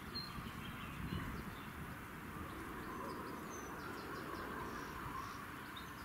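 Outdoor woodland ambience: a steady low rumble on the microphone with faint, scattered bird chirps.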